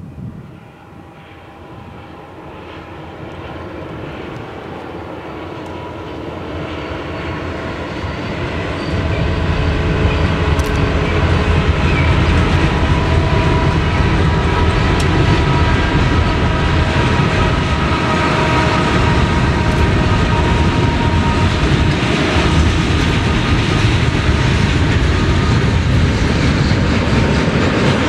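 BNSF manifest freight train's diesel locomotives approaching, their engines getting steadily louder for about nine seconds, then passing close by. After that, a steady loud rumble with the clickety-clack of freight car wheels rolling over the rails.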